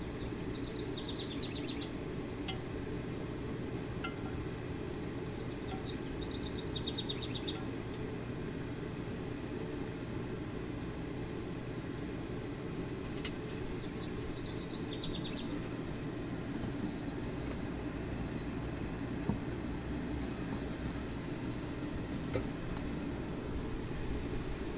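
Steady low rushing hum of a forge blower. A small bird gives a short rapid trill three times over it.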